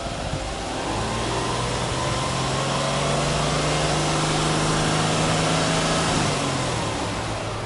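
Subaru Impreza hatchback 1.5i's flat-four boxer engine heard at the tailpipe, revved up over about a second, held steady at raised revs for about five seconds, then let back down toward idle near the end.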